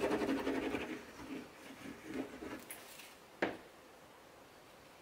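Tombow liquid glue's sponge tip rubbed across paper cardstock: a scratchy, fine-grained rubbing for about the first second, then a few softer rubs, and a single sharp tap about three and a half seconds in.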